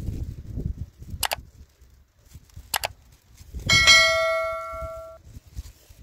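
Subscribe-button animation sound effects: two sharp mouse clicks about a second and a half apart, then a notification-bell chime that rings for about a second and a half and cuts off. A low rumble fades out within the first second.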